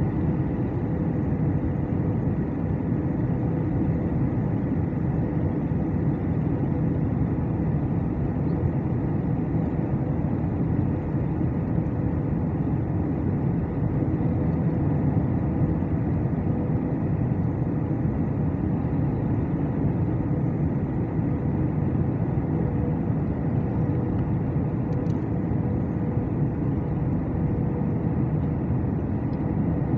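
Cabin noise of an Airbus A319 heard beside the wing-mounted engine while descending on approach: a steady rumble of engine and rushing air with a steady hum running through it.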